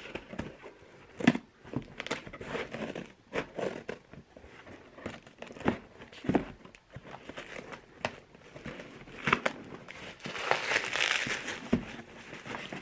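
Scissors snipping through packing tape on a cardboard box, in irregular sharp cuts and rustles. Near the end, a longer stretch of crinkling as bubble wrap is pulled out of the box.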